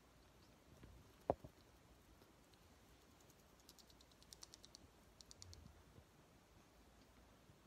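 A pair of eclectus parrots making quick, light clicking sounds in two short runs, with a single sharp knock about a second in.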